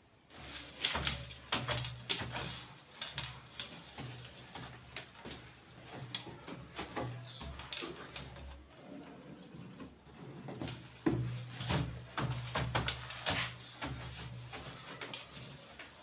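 Soapy sponge scrubbing the glass lid of a semi-automatic twin-tub washing machine: a quick, irregular run of swishing, rubbing strokes.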